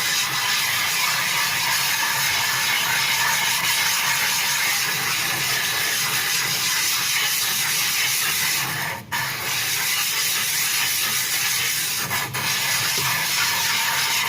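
Rozsutec natural sharpening stone being lapped on loose 400-grit silicon carbide and water on a glass plate, pressed only by its own weight: a steady gritty, rasping hiss of stone grinding through the slurry, broken briefly twice, about nine and twelve seconds in.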